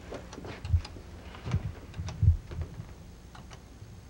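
Apple II keyboard being typed on as a password is keyed in: a run of irregular key clicks with a few dull low thumps among them.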